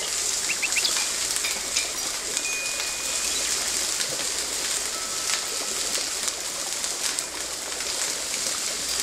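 Steady sizzling and crackling from an electric tabletop grill, where garlic potatoes fry in oil in the reservoir with freshly added water boiling off. A few faint high squeaks come in the first few seconds.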